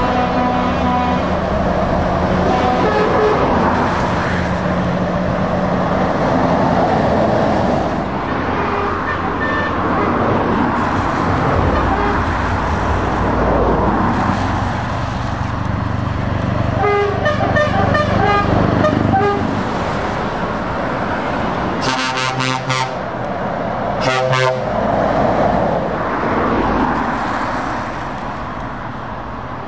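Heavy lorries and cars passing close by, with truck diesel engines running. Truck air horns sound: a run of shifting horn notes just past halfway, then two short loud blasts a couple of seconds apart.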